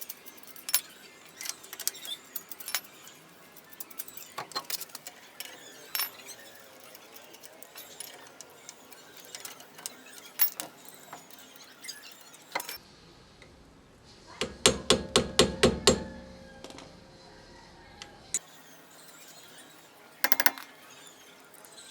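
Light metallic clicks and clinks of tools and parts being handled, with a quick run of about ten strong knocks in the middle.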